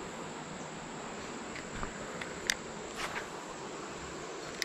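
Steady high-pitched insect chorus over a low background hiss, with a few faint clicks and one sharper tick about two and a half seconds in.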